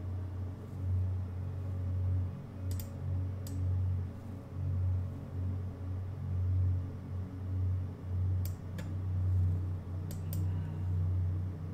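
A handful of sharp computer mouse or keyboard clicks, some in quick pairs, over a low steady hum that swells and fades.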